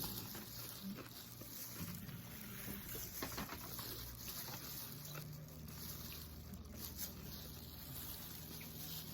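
Faint eating sounds: a person chewing, with a few light clicks scattered through, over a low steady hum.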